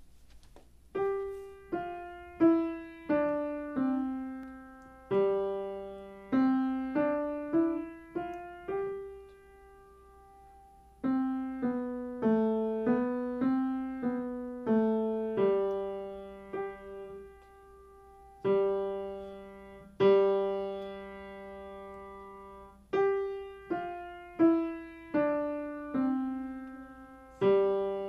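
Grand piano played by a child: a simple melody of separate notes, mostly one or two at a time, each fading after it is struck. There is a short pause about ten seconds in and longer held notes around twenty seconds in.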